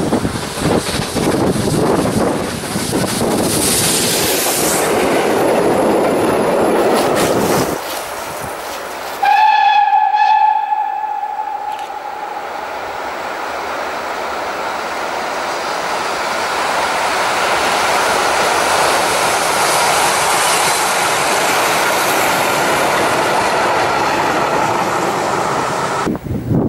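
Steam locomotive passing close, a loud rumble that stops abruptly about eight seconds in. About nine seconds in comes one long steam whistle blast, held for about three seconds, the loudest sound. It is followed by the steady rumble and rail clatter of a steam train passing, swelling and then easing off.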